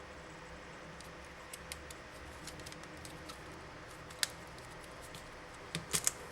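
Small, sharp clicks and ticks of plastic phone parts and small tools being handled while a Sony Ericsson K550i phone is taken apart. The clicks are scattered, with a sharper one about four seconds in and a quick cluster of three near the end, over a steady background hiss.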